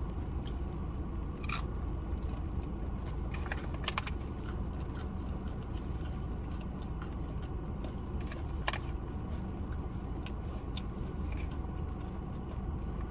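Close-up eating: chewing and crunching, with scattered sharp clicks and scrapes of a utensil and food container, over a steady low background hum.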